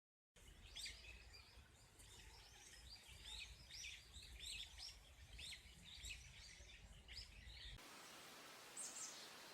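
Small songbirds chirping and twittering in quick, repeated short calls over a low rumble. About eight seconds in, the sound cuts abruptly to a steady hiss, with one more brief call.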